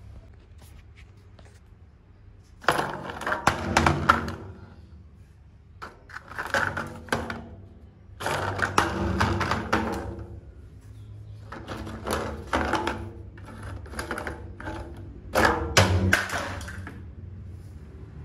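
Plastic toy trucks tumbling down steel diamond-plate stairs, clattering and knocking against the metal steps in five bursts of rapid impacts, each a second or two long.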